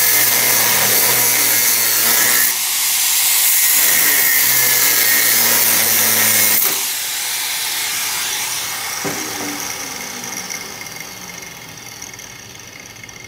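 DeWalt angle grinder with a cutoff wheel cutting through the weld on a steel exhaust bracket, a loud steady grinding screech with a brief break about two and a half seconds in. About halfway through the cutting stops and the grinder winds down, the sound fading away.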